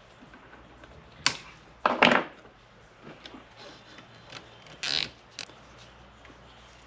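Plastic cable ties being pulled tight around wiring, a few short ratcheting zips and clicks: one about a second in, a longer one around two seconds, and the loudest near five seconds.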